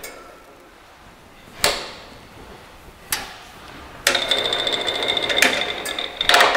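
Jet J-8201K metal/wood bandsaw's gearbox being shifted from slow to high speed: a few sharp clicks as the speed-change box is worked, then, about four seconds in, a loud rhythmic mechanical rattle with a steady high whine.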